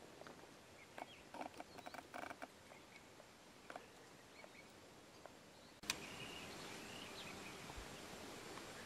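Quiet bush ambience. A few soft ticks and rustles come in the first half. After a sharp click about six seconds in, faint bird chirps sound over a steady outdoor hiss.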